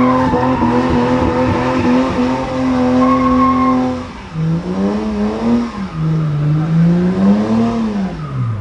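BMW E30 325i's straight-six engine held at steady high revs in a burnout, rear tyres spinning and squealing. About four seconds in the revs drop, then rise and fall several times, falling away near the end.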